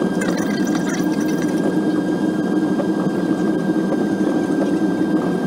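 Jet airliner cabin noise while taxiing: a steady rumble from the engines and cabin air with a thin, steady whine above it. A few faint crackles come in the first second and a half.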